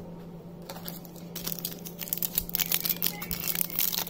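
Crinkling and rustling of a foil trading-card booster-pack wrapper being handled and opened, starting about a second in as a dense run of fine crackles, over a steady low hum.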